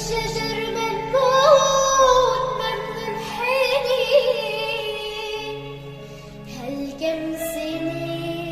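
A young girl singing an Arabic song in long, wavering held notes over an instrumental backing track. The voice drops out for a stretch past the middle, leaving the accompaniment, then comes back near the end.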